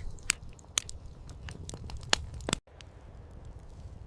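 Scattered sharp crackles and crunches over a low rumble, cutting off suddenly about two and a half seconds in to a quieter stretch with a few more clicks.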